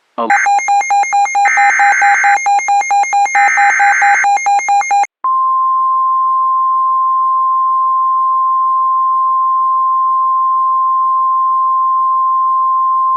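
Emergency alert signal: about five seconds of rapid electronic beeping and warbling data-like tones, then a single steady high tone near 1 kHz, the NOAA Weather Radio warning alarm tone that comes before a tornado warning.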